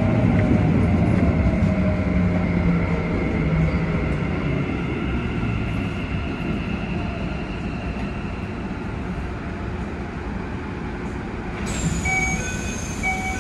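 Keikyu 1000 series train's Mitsubishi VVVF inverter whining under running rumble, its tones falling slowly in pitch and the sound fading as the train brakes. Near the end, a short series of electronic chime tones.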